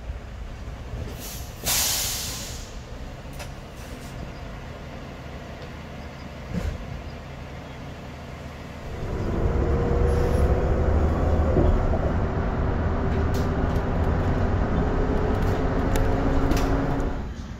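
Inside a city bus: a short sharp hiss of air about two seconds in, then about nine seconds in the engine gets louder as the bus pulls away, a low rumble with a slowly rising whine, easing off near the end.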